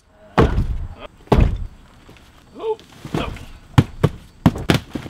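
Large cardboard shipping boxes being set down heavily: two loud thuds in the first second and a half, then several lighter, sharper knocks near the end.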